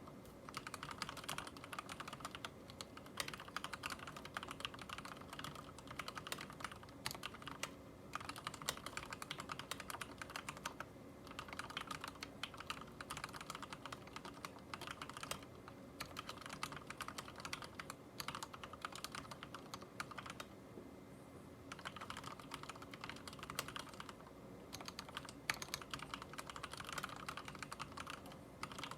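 Steady typing on a mechanical keyboard with lubed Cherry MX Red linear switches: rapid key clicks and bottoming-out taps, with a few brief pauses.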